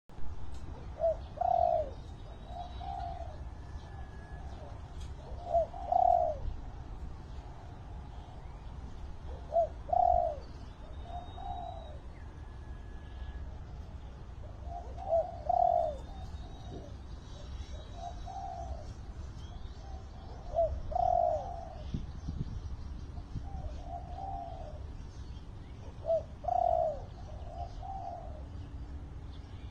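Spotted dove, a decoy bird, cooing a short phrase of two or three notes about every five seconds. Faint chirps of other birds sound in between.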